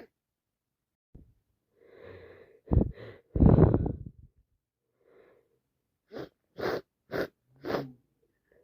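A woman's wet sneeze from a head cold: a breathy build-up, two short sharp bursts, then the loudest, longest sneeze about three and a half seconds in. Four short sharp breaths follow near the end.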